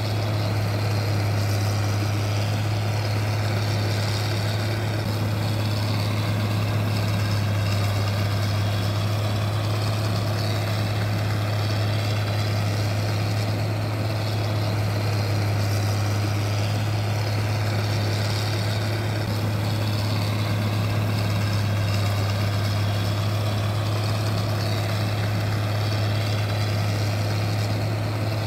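Steady, unchanging mechanical hum with one strong low tone, from a motor or engine running at constant speed.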